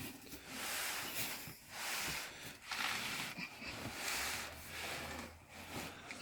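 Large cardboard box being handled: a series of short rustling, scraping swells.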